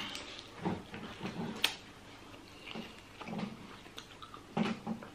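Close-miked chewing and wet mouth sounds of someone eating rotisserie chicken in irregular short bursts, with a sharp click about a second and a half in.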